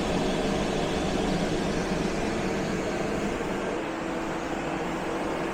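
CountryMod 24 V DC 10,000 BTU low-profile rooftop air conditioner running flat out, its blower on the highest fan speed and its compressor on. It makes a steady rush of air with a low hum underneath.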